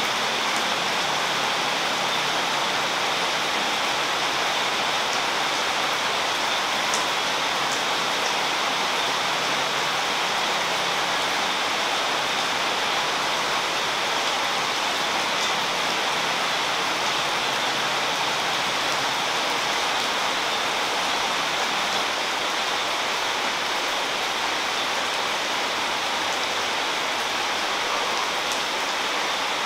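A steady, even hiss like falling rain, holding one level throughout.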